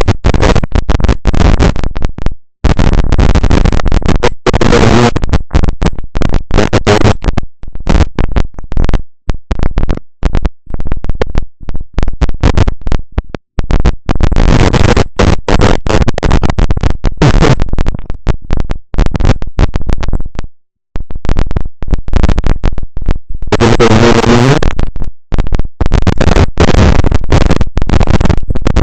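Loud, harsh microphone static: a faulty mic crackling and sputtering, cutting out briefly again and again, drowning out any other sound.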